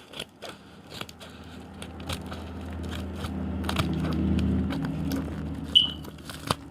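A mailed package being cut and pulled open: crackling, scraping and sharp clicks of the packaging. A low rumble swells up through the middle and dies away about five seconds in.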